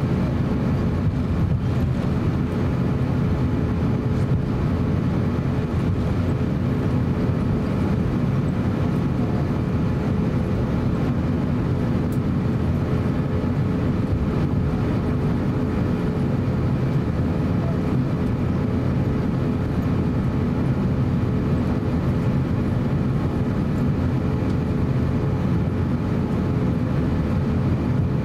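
Cabin noise of an Airbus A350-900 taxiing: its Rolls-Royce Trent XWB engines at low taxi power and the aircraft rolling along the taxiway, heard as a steady low rumble with a faint steady hum.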